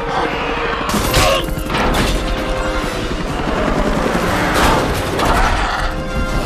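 Action-film sound mix: dramatic music score over booms and gunfire, with a helicopter windshield smashing about a second in.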